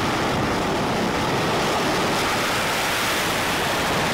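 F/A-18 Super Hornet's twin jet engines running at high power on an aircraft carrier's catapult just before launch: a loud, steady rushing noise that holds an even level throughout.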